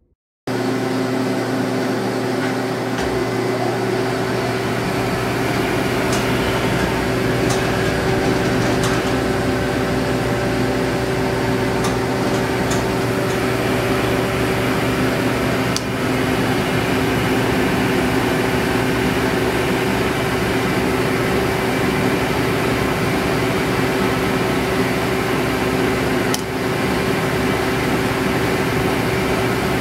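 Hardinge HC chucking lathe running under power: a steady motor and spindle-drive hum, with a few scattered clicks.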